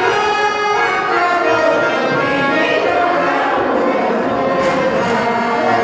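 Garmon (Russian button accordion) playing a song, with a group of people singing along.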